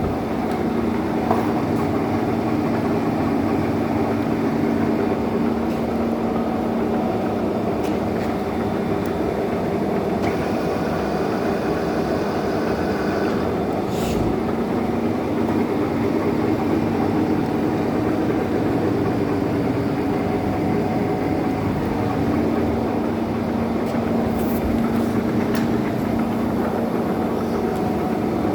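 1M63 heavy centre lathe running, a steady mechanical drone from its headstock gearing. Short knocks stand out about halfway through and again near the end.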